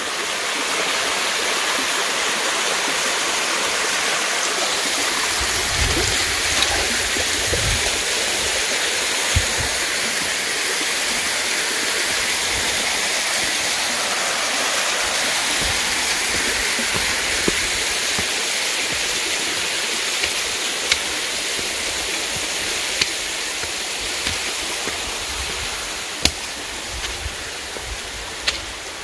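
Small waterfall cascading down a sloping rock face: a steady rushing splash of water that grows gradually fainter over the last third, with a few soft thuds along the way.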